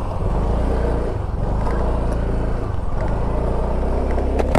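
A motor vehicle's engine running steadily, with a low hum and road noise while driving.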